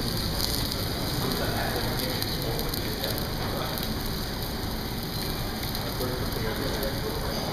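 Meat sizzling on a tabletop Korean barbecue grill: a steady crackling hiss.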